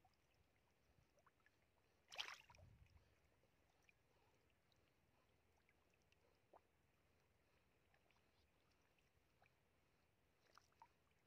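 Near silence, broken about two seconds in by one brief splash of fish thrashing in shallow muddy water, with a few faint wet ticks later on.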